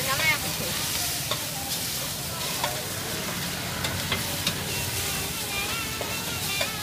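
Noodles and vegetables sizzling in a large steel wok while a metal spatula stirs and tosses them, with scattered scrapes and clicks of the spatula against the wok.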